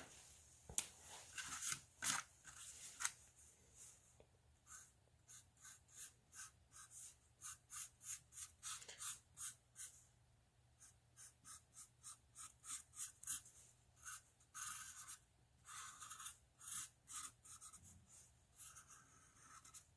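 Drawing a bird outline onto cardboard: a run of short, faint strokes of a drawing tip on the card, a few a second, pausing briefly about halfway through.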